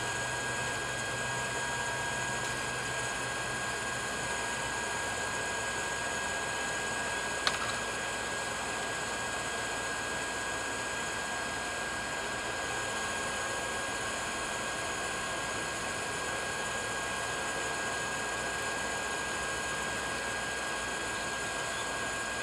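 Electric blower running steadily, forcing air into a forge fire: a constant rush of air with a thin steady whine. A single sharp metallic click about seven and a half seconds in.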